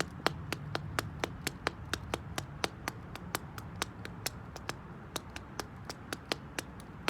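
Slingback shoe tapping on concrete in a steady rhythm of sharp clicks, about four a second.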